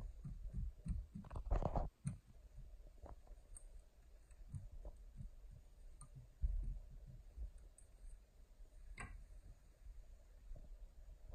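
Plastic clothes hangers sliding and clicking along a metal closet rod as garments are pushed aside, with fabric rustling. Faint scattered clicks, a longer rustle at about a second and a half, and a sharper click about nine seconds in.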